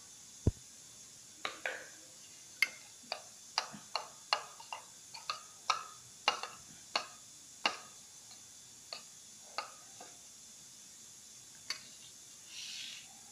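A metal spoon clinks against a stainless steel bowl as whisked yogurt is stirred with salt, a string of light ticks about two a second that stops after about ten seconds. There is one dull knock about half a second in and a soft swish near the end.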